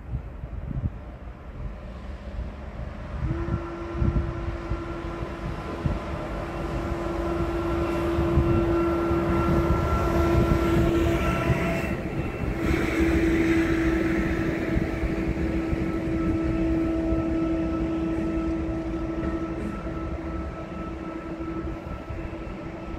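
SNCF Fret electric locomotive running light through a station, passing close by. It gives a steady electric hum with fainter higher whines over the rumble of its wheels on the rails. The sound swells as it draws level and fades as it goes away.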